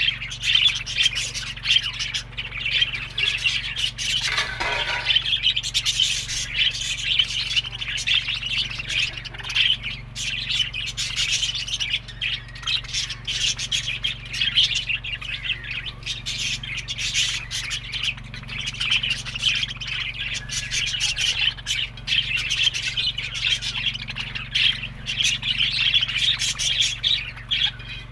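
A flock of budgerigars chattering continuously in rapid chirps and warbles, with one louder call about four seconds in.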